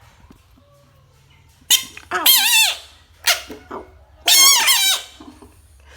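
A frog giving high, squeaky cries in short bursts: about three calls, each under a second, with a wavering pitch.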